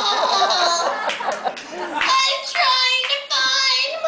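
A woman speaking into a microphone in a high-pitched, animated voice.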